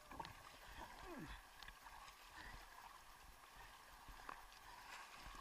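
Faint sea water sloshing and lapping right at the camera housing, with small splashes and drips.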